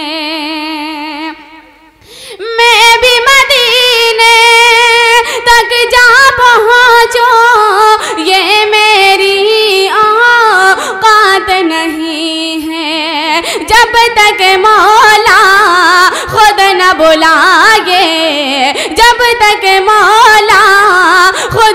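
A woman singing a naat solo: one long, ornamented melodic line with wavering, sliding pitch, broken by a short breath about two seconds in.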